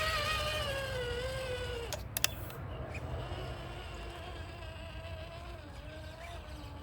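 RC rock crawler's electric motor whining under throttle as it crawls over rocks, the whine sagging slightly in pitch over the first two seconds and then going on fainter. A couple of sharp clicks about two seconds in.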